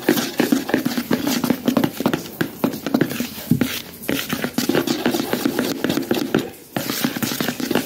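A bare hand working cake mixture in a plastic bowl: quick, rhythmic, repeated wet squelches and slaps, with a brief pause a little after six seconds.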